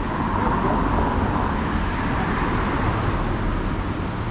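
Steady road traffic noise of passing cars on a city street, swelling slightly over the first couple of seconds.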